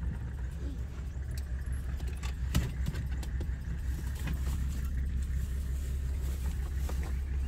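Steady low rumble of a car driving over desert ground, heard from inside the cabin, with scattered small rattles and clicks of loose things.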